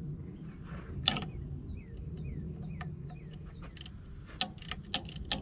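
Hand tools clinking on a small bolt: sharp, irregular metal clicks, the loudest about a second in and a cluster near the end, over a steady low hum. A few short high chirps sound in the background.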